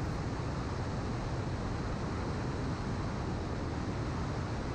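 Steady drone of a light aircraft's engine and propeller, mixed with rushing airflow.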